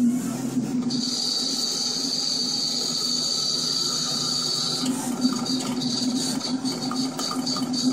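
A cutting plotter's knife carriage running as it cuts a memorial stencil mask: a steady high motor whine over a low hum, breaking into rapid short pulses about five seconds in.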